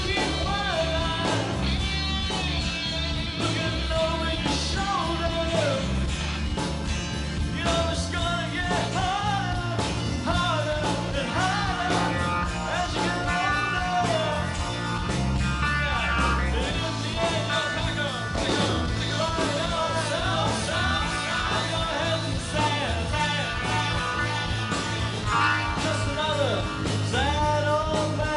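Live rock band playing: electric guitars, bass guitar, drums and keyboards together, with a bending lead melody over a steady bass line.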